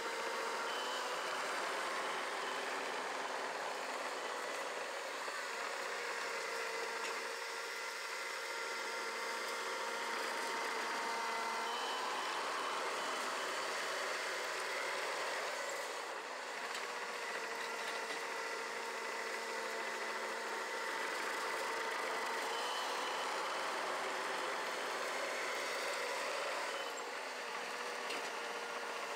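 Small Caterpillar crawler dozer's diesel engine running steadily as it works, its pitch shifting a little now and then.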